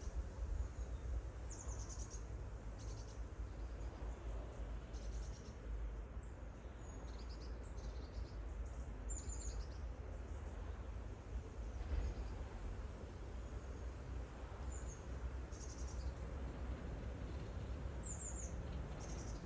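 Small birds chirping in short, high calls every second or two over a steady low background rumble.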